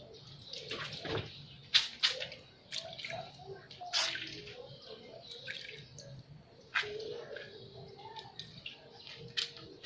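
Water being squished by hand into wet curly hair over a basin of water and conditioner: irregular squelches, splashes and drips, a few sharper splashes among them.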